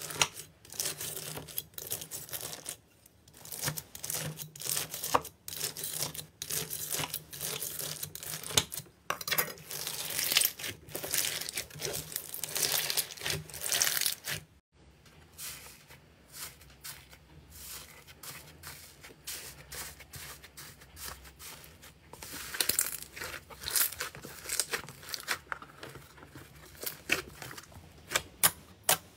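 Clear slime packed with pearl-like beads being cut with a knife and then squeezed by hand: dense crackling and crunching of the beads. After a brief break about halfway, the crackling is quieter and sparser.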